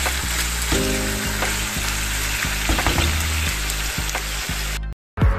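Beef strips with onions and mushrooms sizzling in a hot frying pan while being stirred with a spatula. The sizzle cuts off suddenly about five seconds in.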